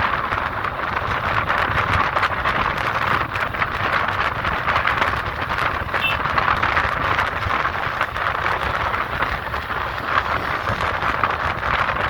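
Steady rushing of wind on the microphone over road traffic noise, an even roar with no lulls or distinct events.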